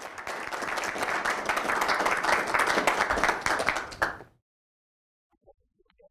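Audience applauding: a dense patter of many hands clapping that cuts off suddenly a little over four seconds in.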